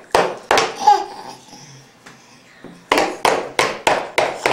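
A toddler bangs on a plastic high-chair tray, a few sharp knocks at first, then after a pause a fast run of knocks about three a second.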